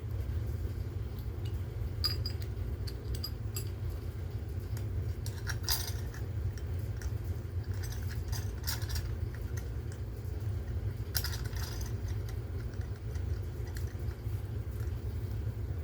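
Intermittent light clattering and clicking as tangled power cords and plastic smoke alarm units are handled and pulled apart, over a steady low hum.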